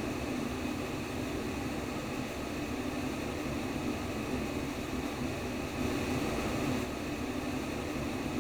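Womb-sound white noise for babies: a steady, even rushing hiss that swells slightly about six seconds in.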